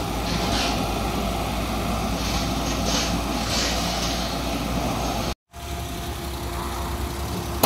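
Perodua Kancil's small three-cylinder engine idling steadily through its newly replaced exhaust muffler. The sound cuts out briefly about five seconds in, returns as a steadier hum, and ends with a sharp click.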